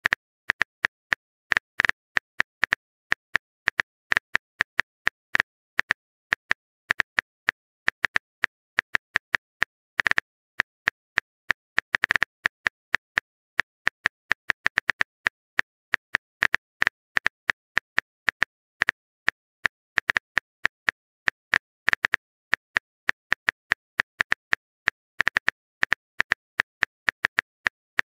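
Phone-keyboard typing sound effect: a long run of short, sharp taps, a few a second in an uneven rhythm, with quick flurries here and there.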